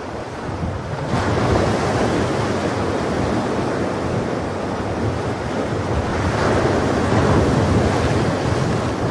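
Ocean surf washing onto a sandy beach, with waves surging in about a second in and again around six and a half seconds.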